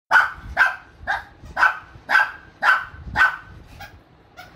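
Shih tzu barking repeatedly, about two barks a second, seven in a row, then two fainter barks near the end.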